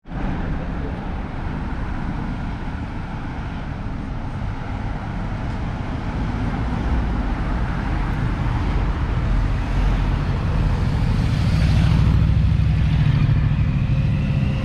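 A road vehicle driving: a steady low rumble of engine and road noise that grows louder toward the end.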